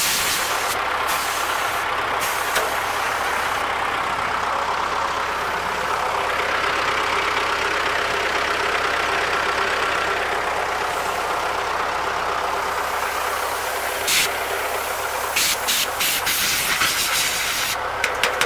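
ZIL-5301 Bychok truck's diesel engine idling steadily, keeping its air tanks charged, under the hiss of compressed air from a blow gun blowing out a clogged radiator core. Several short, sharp blasts of air come in the last few seconds.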